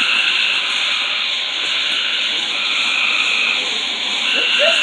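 Steady, loud hissing spray of a burning ground fountain firework.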